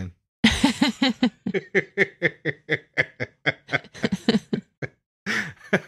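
A person laughing in a long run of quick ha-ha bursts, about four or five a second, that dies away a little before the end.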